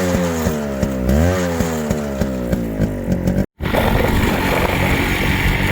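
Yamaha RX135 two-stroke single-cylinder engine running and revving, its pitch dipping and rising again about a second in. After a sudden cut about halfway through, it runs steadily with a rougher, noisier tone.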